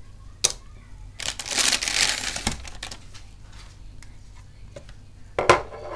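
Plastic packaging crinkling and rustling for about a second and a half as the unboxed accessories are handled. A sharp knock comes just before it, and a few more knocks near the end as items are set down on a tabletop.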